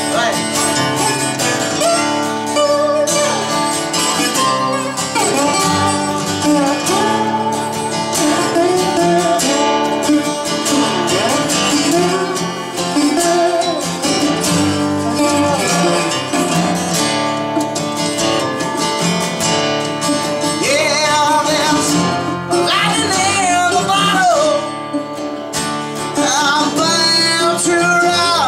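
Live acoustic country-rock band music: an instrumental break led by a picked metal-bodied resonator guitar over strummed acoustic guitar, with the melody bending in pitch. A singing voice comes in near the end.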